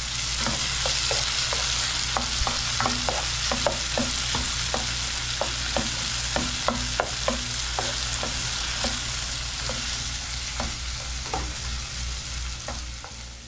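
Chopped tomatoes, onion and green chile sizzling in a frying pan as a sofrito, while a spatula stirs them, tapping and scraping the pan about twice a second.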